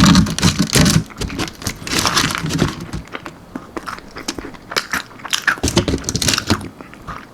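Close-up biting and chewing of a crispy almond-flour-breaded baked chicken wing, with a run of irregular crunches.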